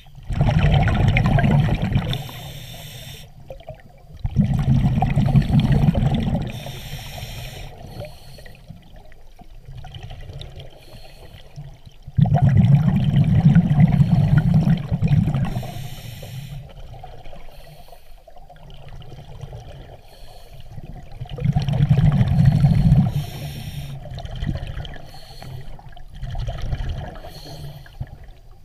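Scuba diver breathing through a regulator underwater: four long exhalations, each a two-to-three-second burst of rumbling bubbles, with quieter hissing stretches between them.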